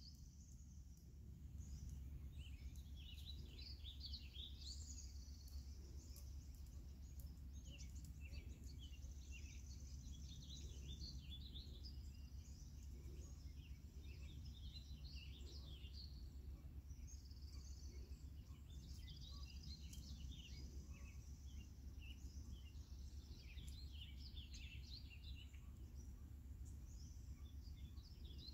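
Small songbirds chirping and twittering on and off throughout, faint over a low steady background rumble.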